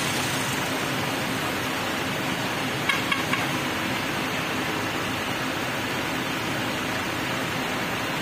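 Bus engine running steadily as the coach creeps slowly across the yard, a continuous noisy hum, with three short clicks about three seconds in.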